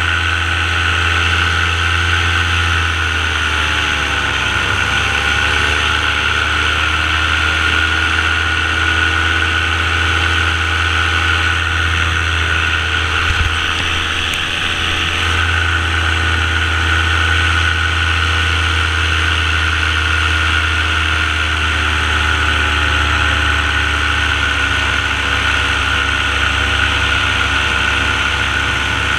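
Paramotor engine and propeller running steadily in flight. Its pitch dips and recovers about four seconds in, and eases down a little again near the end.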